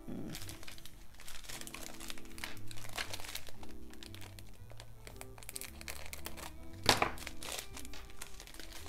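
Small plastic zip-lock bags of diamond-painting drills crinkling and rustling as they are handled and opened, with one sharp, louder crinkle about seven seconds in. Soft background music with held notes plays underneath.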